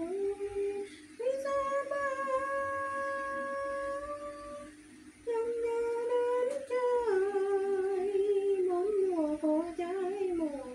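A woman's voice humming a slow tune in long held notes, with a brief pause about halfway through.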